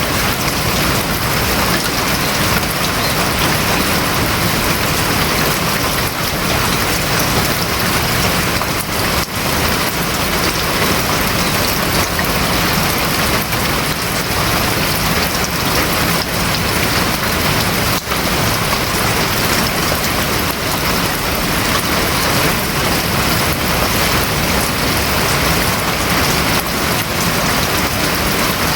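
Steady rain falling on the roof of a house, an even, unbroken wash of sound.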